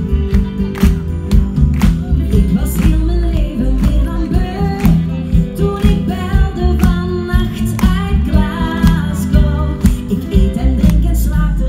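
Live pop music played loudly through a stage PA: women singing into microphones over a steady drum beat and heavy bass, with the melody coming in a couple of seconds in.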